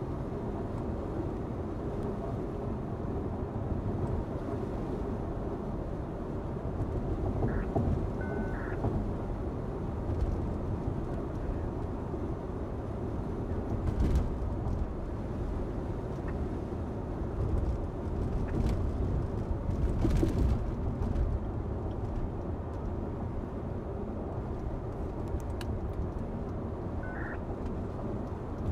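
Steady road and engine rumble inside a car cruising on a highway, with a few brief knocks and faint short beeps.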